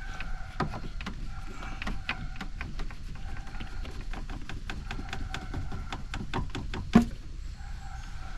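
Irregular light clicks and knocks of hand work on parts under the hood, with one sharper knock about seven seconds in.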